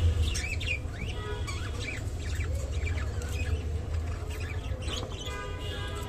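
Budgerigars chattering: a busy run of short chirps and warbling notes, over a steady low hum.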